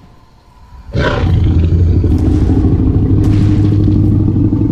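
A dinosaur's long, deep roar, a designed film sound effect, starting about a second in and holding steady.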